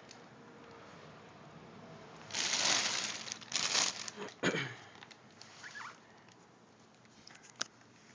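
Subwoofer packaging being handled: two short bursts of rustling about two and a half and three and a half seconds in, then a few light knocks and clicks.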